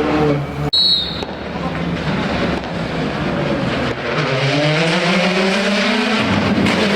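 Rally car engine at full power on a special stage. The engine note breaks off sharply just under a second in, with a short high squeal, then climbs steadily in pitch as the car accelerates.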